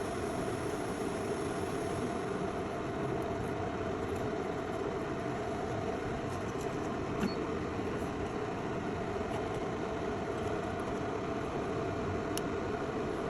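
Steady fan-like rushing noise from soldering bench equipment, running unchanged, with a couple of faint ticks of tools on the board.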